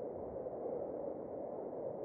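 Steady, even hum of distant city traffic, with no single vehicle standing out.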